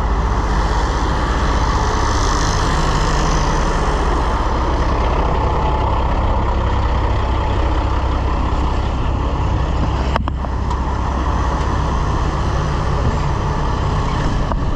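Heavy diesel engine running steadily and loudly, with a single sharp click about ten seconds in.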